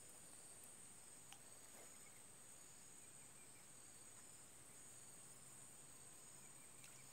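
Faint, steady, high-pitched drone of insects such as crickets, over near silence, with one faint tick about a second in.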